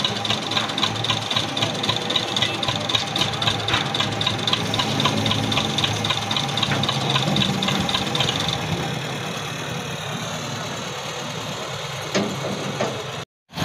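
Tractor diesel engine idling with a steady, rhythmic clatter. About nine seconds in the clatter fades and only a quieter, lower engine hum remains.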